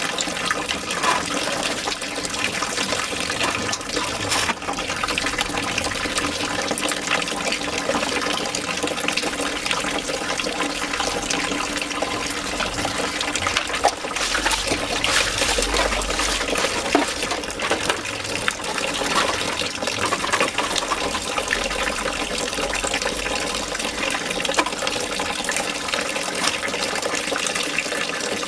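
Water running and splashing steadily, as from a tap or hose.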